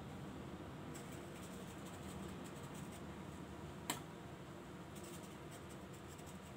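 Faint scratching and rustling as a cinnamon mixture is sprinkled by hand over bastilla pastry leaves, with one sharp click about four seconds in.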